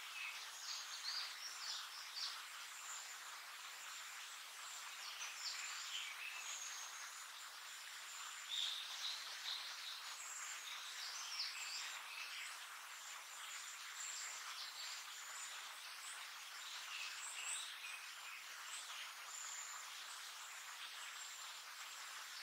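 Recently fledged blue-and-white flycatcher chick giving short, high calls, repeated at irregular intervals, over a steady background hiss.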